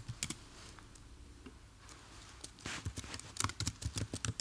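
Computer keyboard typing: a short quiet stretch, then quick key clicks from a little past the middle onward.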